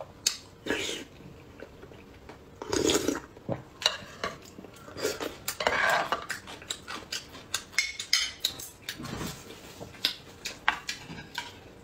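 A metal spoon clinking and scraping against a metal soup bowl: a scattering of sharp clicks and knocks, with a few longer scraping sounds.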